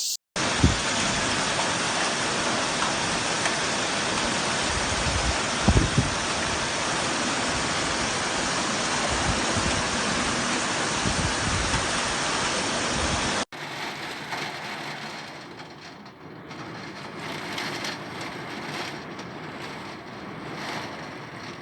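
Heavy rain pouring down in a loud, steady hiss, with a few low thumps about six seconds in. About thirteen seconds in it cuts to quieter rain with faint scattered taps.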